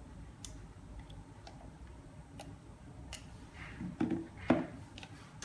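Scattered light clicks and taps from handling small repair parts and tools on a workbench, about one a second, with two louder short knocks about four seconds in.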